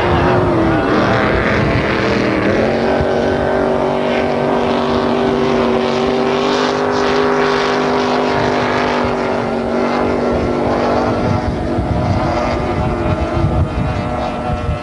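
Supercharged race boat engines at high revs, loud and continuous. The note falls over the first two seconds, a steady high pitch then holds until about ten seconds in, and the sound turns rougher and more uneven near the end.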